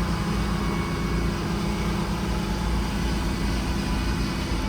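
Sawmill's engine running steadily with an even low hum.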